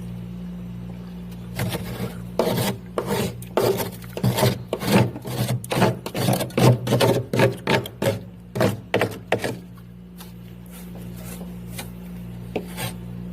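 Frost and ice scraped in a freezer: a quick run of rasping scrapes, about two to three a second, then a few scattered scrapes near the end.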